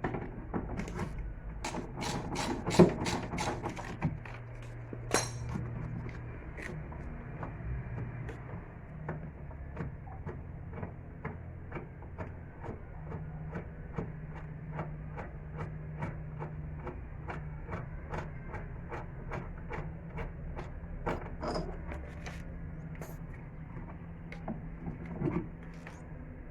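Hand tools working on a car's rear shock absorber mounting: a few sharp knocks, then a long run of even clicks, about three a second, over a steady low hum.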